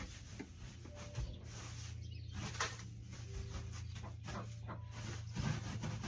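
Wood shavings rustling and swishing in irregular strokes as fresh bedding is poured and spread in a brood box, with a steady low hum and a few short animal calls.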